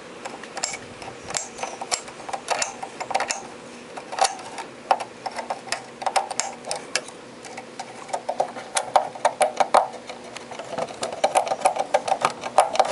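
Metal tool scraping and scratching inside the contacts of a quarter-inch input jack in quick, irregular clicks, scraping off a crust of oxidation left by flood mud; the scratching gets busier and louder toward the end.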